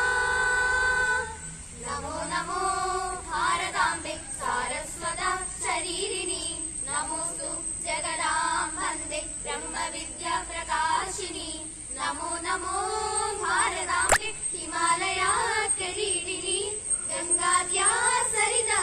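A small group of teenage students singing a Malayalam patriotic song together, unaccompanied. A long held note ends about a second in, and the next sung phrases follow.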